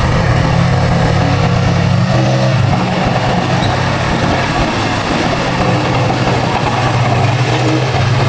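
Heavy earthmoving machine's diesel engine running steadily, its pitch shifting slightly a few times.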